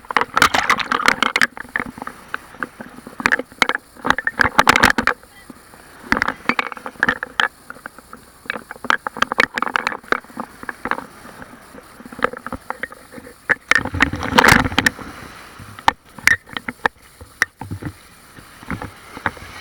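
Sea water splashing and waves breaking close to the microphone, in irregular crackling bursts, the loudest about fourteen seconds in.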